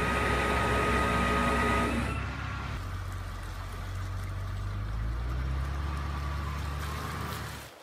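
Vehicle engine running steadily while a mud-stuck Jeep Cherokee is winched out on a chain, with a high steady whine over it for about the first two seconds. The engine note lifts slightly about five seconds in.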